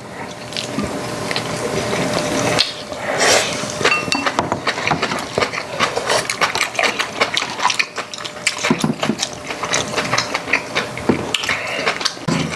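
People eating pork backbone soup: spoons clicking against bowls again and again, with slurping of the broth.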